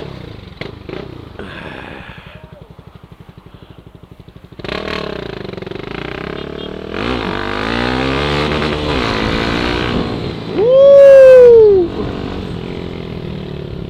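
Honda Twister motorcycle engine running low for the first few seconds, then louder about four and a half seconds in, revving up and down in pitch. Near the end a very loud tone slides downward in pitch for just over a second.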